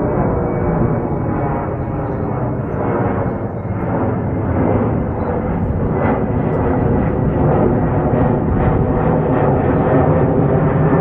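Motorcycle engine running under way, its pitch drifting up and down slightly, mixed with wind rush on the camera's microphone.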